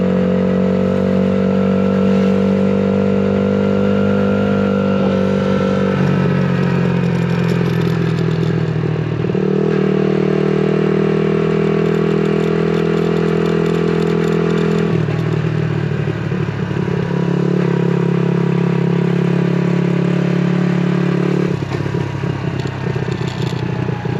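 A 70cc Suzuki pit bike's small four-stroke single-cylinder engine running under way. Its note holds steady, then drops and rises again in several distinct steps as the speed changes.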